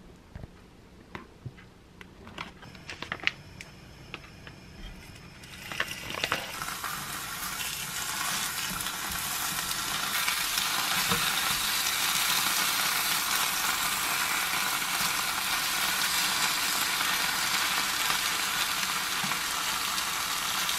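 A few light clicks and taps for the first several seconds, then sliced duck frying in a small square non-stick egg-roll pan. The sizzle starts about six seconds in, builds, and holds steady from about ten seconds on.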